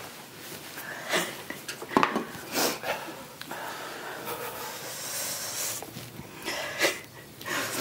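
A woman breathing hard and sniffling while she suffers the burn of super-hot chili, with a few short sharp sounds along the way.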